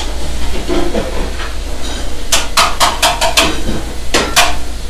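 Busy commercial kitchen line: a steady hiss over a low hum, with a quick run of sharp metal clanks of cookware a little past halfway and two more near the end.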